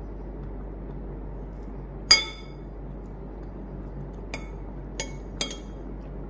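A metal spoon clinking against a ceramic plate while scooping food: one sharp, ringing clink about two seconds in, then three lighter clinks over the next few seconds.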